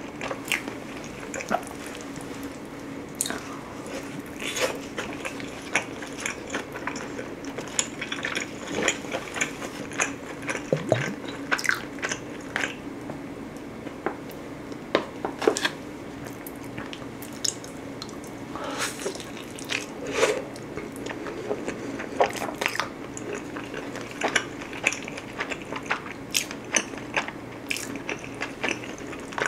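Close-miked chewing and crunching of thin-crust pizza, with many sharp crisp bites and mouth clicks scattered through, over a faint steady low hum. Partway through, thick garlic dipping sauce is squeezed from a plastic pouch into a bowl.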